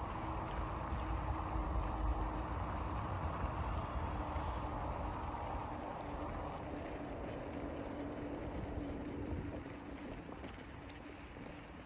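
Steady town-centre background rumble with a constant low hum running through it, easing off somewhat near the end.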